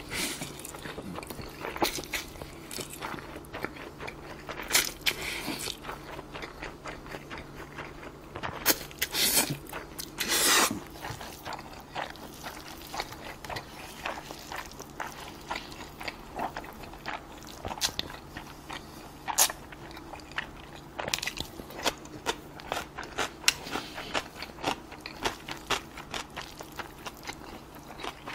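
Close-up eating of bibim-myeon noodles and sliced beef brisket: steady wet chewing and lip smacks, broken by a few longer slurps of noodles.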